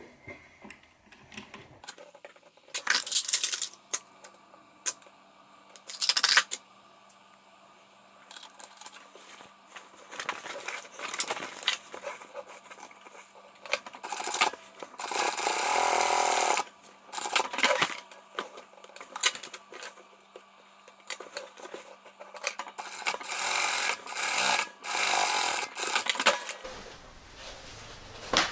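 Industrial flatbed sewing machine stitching canvas in several short runs, the longest about halfway through, between clicks and knocks of the fabric and machine being handled. A low steady hum from the machine's motor runs underneath and stops near the end.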